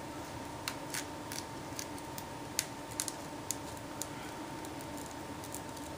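Irregular sharp clicks and small cracks as a pry tool works between a broken phone display and its frame, breaking the adhesive seal, over a faint steady hum.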